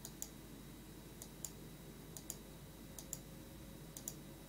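Faint, irregular light clicks of a computer mouse or keys being pressed, about two a second.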